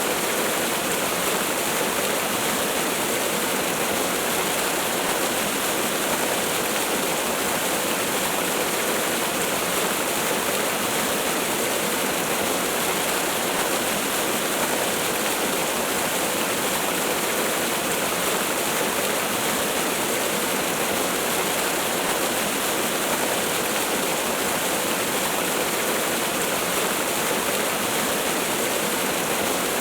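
Waterfall: a steady, even rush of falling water with little bass and no change in level.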